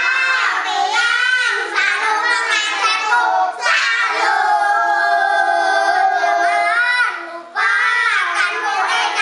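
Children singing a song, with a long held note in the middle and a short break for breath about three-quarters of the way through.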